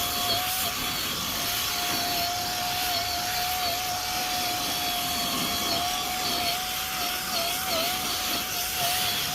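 Ryobi 18V P4510 cordless power scrubber running with its brush on a boat seat: a steady motor whine over the hiss of the bristles, the pitch dipping slightly a few times near the end as it is pressed harder.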